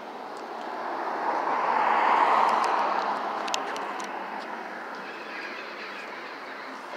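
A vehicle driving past on the street, swelling to its loudest about two seconds in and then slowly fading into the steady traffic hum.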